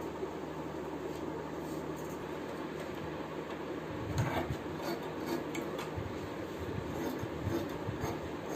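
Large tailoring scissors cutting through layers of folded cloth: irregular snips and blade clicks begin about halfway through, over a steady low background hum.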